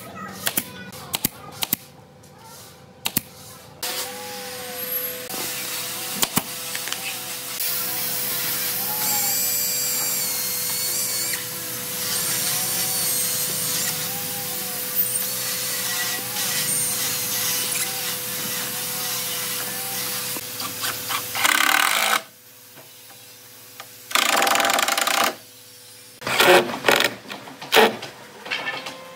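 A handheld electric power tool working wood, running for about eighteen seconds with its pitch wavering and shifting under load, then a brief second run. Light taps and knocks come before it and again near the end.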